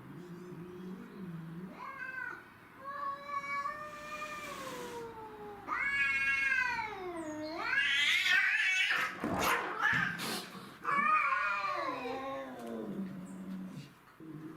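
Cats caterwauling: a low moan, then a string of long, drawn-out yowls that bend up and down in pitch, loudest and harshest around the middle, before a last falling wail.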